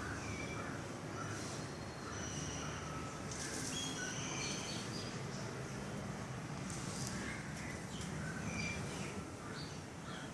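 Crows cawing now and then among many short, high chirps of birds, over a steady low background hum.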